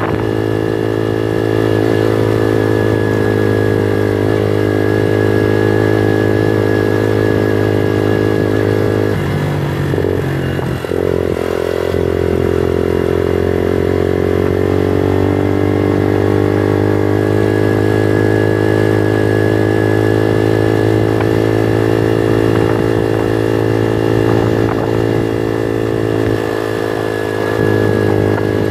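Bullit Hero 125's small single-cylinder engine running under way on a gravel track. The engine note breaks briefly about ten seconds in, then climbs again as it pulls away and settles back to a steady cruise.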